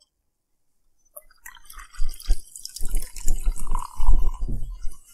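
Soda poured from cans into glasses, starting about a second in: gurgling, splashing pours with the fizzing hiss of carbonation.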